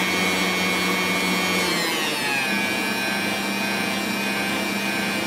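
Electric stand mixer whisking egg whites while hot sugar syrup is poured in for Italian meringue, its motor running with a steady whine. About two seconds in, the motor's pitch drops and then holds steady at the lower note.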